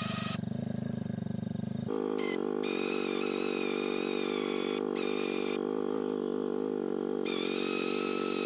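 Electric winch on a side-by-side pulling in cable under load, its motor whine starting and stopping several times, over the side-by-side's engine running steadily.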